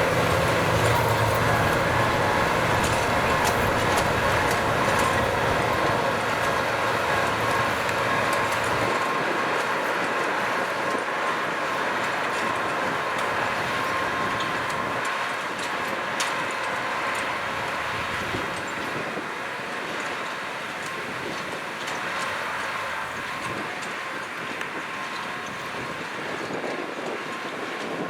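Kubota M6040SU tractor's diesel engine running steadily while plowing field soil, with scattered clicks; its deep low rumble falls away about nine seconds in, and the whole sound slowly gets quieter.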